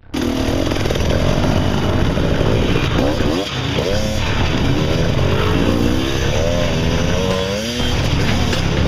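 Several off-road dirt bike engines running and revving, their pitch rising and falling over and over as the riders work the throttle on the climb.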